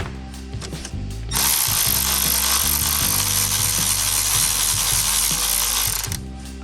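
Ratchet wrench clicking on the power steering pump's fittings over background music, with a loud steady rasping noise from about one and a half seconds in until about six seconds.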